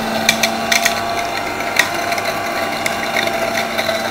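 Electric juicer with a 450-watt copper motor running steadily with a hum, grapes rattling and clicking irregularly against the spinning blade and seed collector as they are crushed and their seeds are thrown up into the collector.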